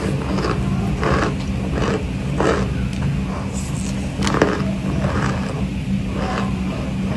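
Someone biting and chewing dry chunks of cornstarch close to the microphone: irregular crunches about once a second over a steady low hum.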